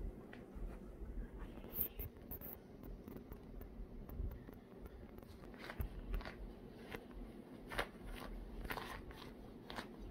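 Puppies shuffling and burrowing in bed sheets: faint rustling of the bedding with scattered short scrapes and taps, several of them in the second half.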